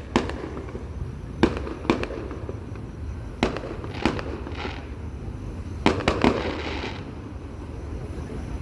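Aerial fireworks bursting: about eight sharp bangs spaced irregularly over several seconds, a few of them followed by a short crackling hiss.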